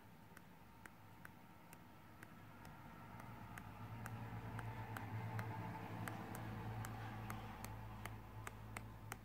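Pages of a paper pad flicking off the thumb one after another: faint ticks, about two a second. A low steady hum comes in about three seconds in.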